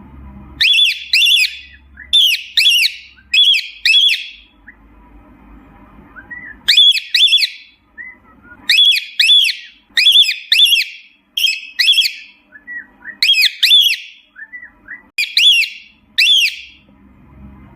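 Cockatiel giving loud whistled contact calls, short rising-and-falling notes mostly in pairs, repeated in bouts every second or two, as a parrot does when calling for its companions.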